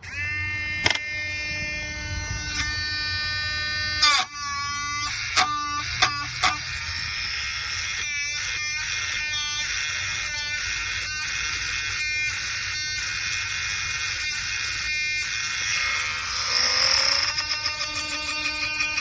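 PHALANX PRT-R3 Max 3.7V cordless rotary tool motor running with a steady high whine, switching on suddenly at the start. Its pitch shifts with a few clicks around four to six seconds in, and shifts again near the end.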